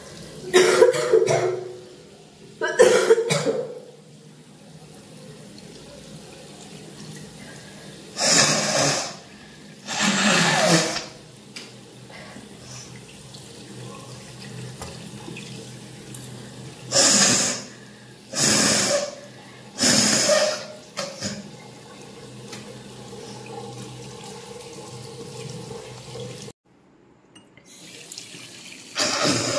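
A woman coughing, hawking up phlegm and spitting, about eight loud short bursts in all, with water running steadily from a tap into a sink between them. She is clearing mucus from a cold.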